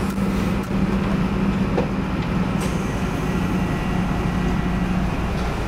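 Steady drone of heavy machinery with a strong low hum, which fades out near the end.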